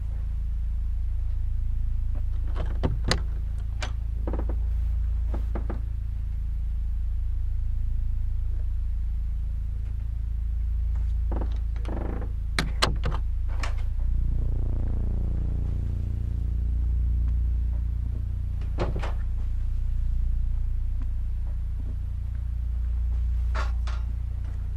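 A low, steady droning score with a slow wavering hum, which shifts abruptly about halfway through. Over it come scattered sharp clicks and knocks of doors being handled and opened, a few seconds apart, with a cluster of them about half way.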